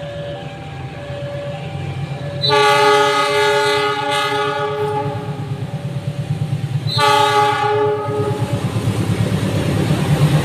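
Locomotive horn of a passenger train sounding two blasts, a long one about two and a half seconds in and a shorter one about seven seconds in, over the low rumble of the approaching train.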